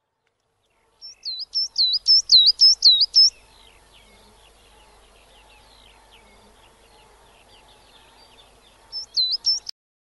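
Coal tit singing: a quick run of high, repeated notes, each sliding downward, for about two seconds. A shorter run starts near the end and cuts off abruptly.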